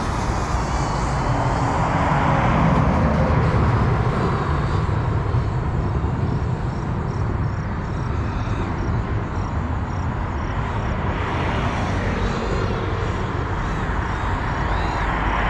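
A small FPV quadcopter's motors whining faintly in the distance, rising and falling in pitch a few times as the throttle changes. Underneath runs a steady rushing outdoor noise.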